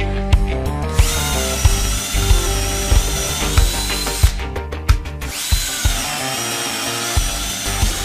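Bosch GSB 1080-2-Li cordless drill motor running twice: a high-pitched whine that spins up about a second in, holds steady and stops around four seconds, then spins up again shortly after and runs until near the end.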